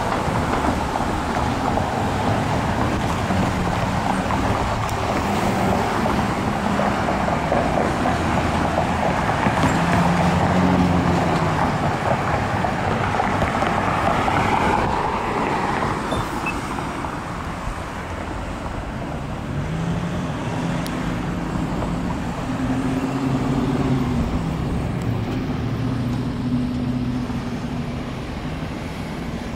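Road traffic: cars and SUVs driving by with tyre noise and engine hum, swelling and fading as each passes, loudest about a third of the way in.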